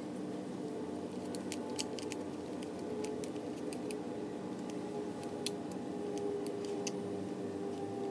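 Scattered small metallic clicks and ticks as the brushes and brush holders in a brushed 48 V golf cart motor's end housing are handled by hand, over a steady background hum.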